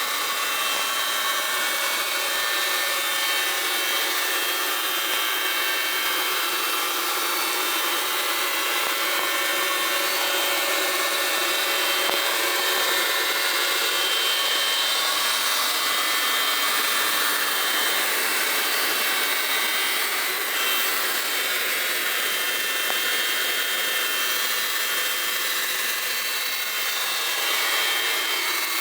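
Handheld power tool running steadily without a break: a high whine over a constant hiss.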